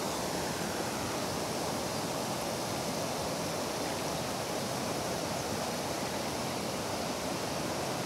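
River water rushing steadily over rocky rapids.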